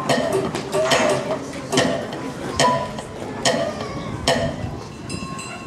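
Sharp knocks at an even beat, a little more than one a second, with clinking in between, the sound of a rhythmic chair dance. The knocks fade somewhat near the end.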